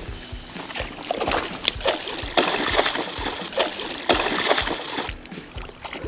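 A hooked trout thrashing at the surface close to the bank, throwing up water in irregular splashes that are loudest from about two and a half to four and a half seconds in.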